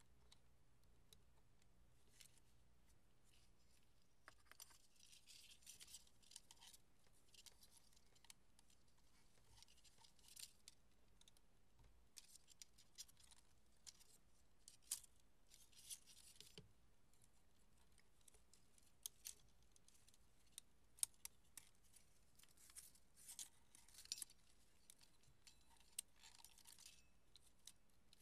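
Faint handling sounds from threading film by hand into a movie camera's film path: soft rustling and scraping of film and fingers against the sprocket rollers and metal guides, with scattered small sharp clicks of parts being moved and latched.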